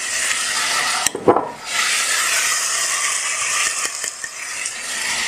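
Canned peas being tipped into a hot pot over potatoes and a frying onion and tomato-paste base, with a steady sizzle throughout and one sharp knock about a second in.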